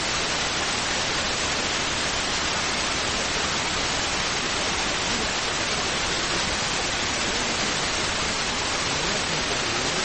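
Loud, steady hiss of static recording noise that does not change or pause, with nothing else heard over it.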